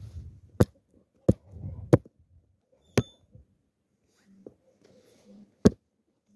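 Five sharp knocks on a cutting board as olives are worked on it, irregularly spaced, the fourth with a brief metallic ring, with soft handling noise between them.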